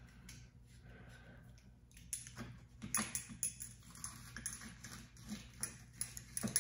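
Locking pliers clamped on a 1940 Ford wing vent assembly, worked against its stuck spring and washer: faint metal clicks and scrapes, with several sharper clicks in the second half, over a steady low hum.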